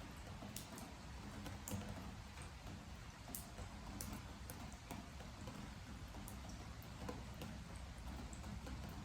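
Rain and water drips falling on a wooden deck: irregular sharp ticks of single drops, a few a second, over a steady soft hiss of rain.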